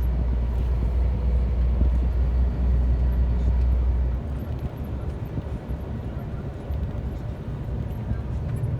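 Truck engine and road noise heard from inside the cab while driving: a steady low drone that eases off about four seconds in, as if the driver lifts off the throttle.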